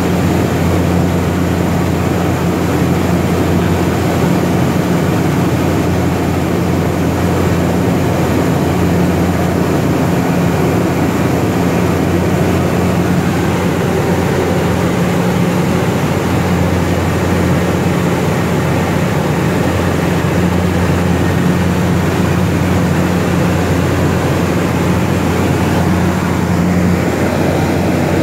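DHC-3 Turbine Otter's GE H80 turboprop engine and propeller running steadily in flight, heard from inside the cockpit as a loud, even low drone.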